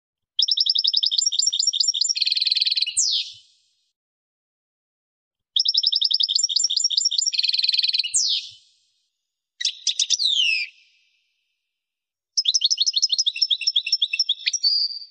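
European goldfinch singing: four phrases of fast, high twittering trills with quick downward slurs, separated by complete silence.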